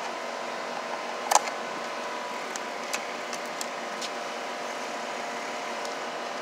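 Pliers and wire being worked at a plastic electrical box: one sharp snap about a second in, then a few fainter clicks, over a steady mechanical hum with faint tones.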